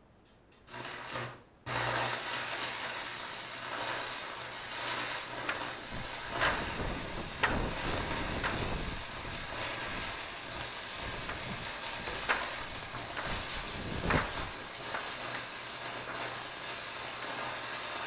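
Stick-welding arc on a steel pipe sleeve over a PTO shaft: the rod is struck about a second in, goes out briefly, is struck again and then crackles steadily with a few sharper pops, stopping right at the end.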